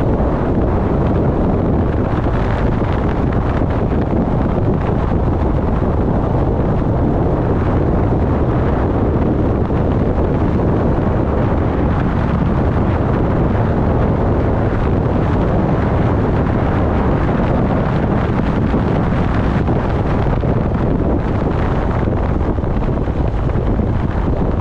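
Wind buffeting the microphone: a steady, loud, low rumble that never lets up.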